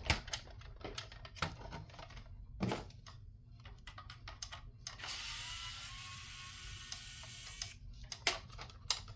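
Scattered light clicks and taps of plastic parts of a CD radio being handled and pulled apart, with a few seconds of scraping, sliding noise starting about five seconds in.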